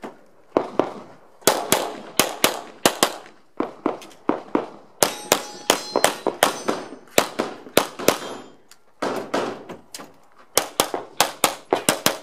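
Glock 17 9mm pistol fired in fast pairs and strings of shots while running a practical shooting stage, with short pauses between strings. Several shots about five seconds in are followed by a brief metallic ringing.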